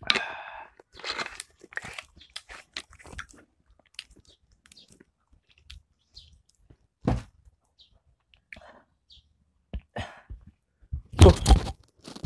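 Close-up crunching and chewing of Mister Potato ghost pepper potato crisps, a dense run of crackly crunches over the first few seconds that thins out to scattered ones. Near the end a louder burst of noise with low thuds.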